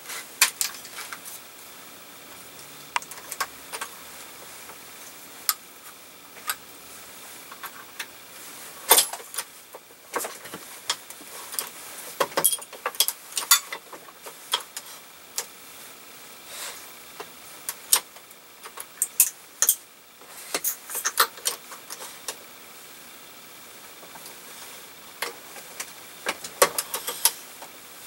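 Metallic clicks and clacks of a Ponsness/Warren Model 375 single-stage shotshell press being worked, with 12-gauge hulls and loading components handled at it. They come in irregular bursts with short pauses between.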